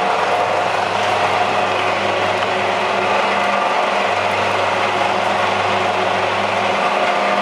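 Automatic stainless-steel dumpling-making machine running steadily: a continuous mechanical whir with a low hum underneath, even throughout.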